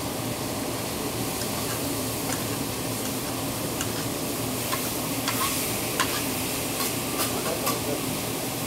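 Food sizzling on a teppanyaki griddle, with the chef's metal spatula tapping and scraping against the steel plate. The taps start about a second in and come more often in the second half.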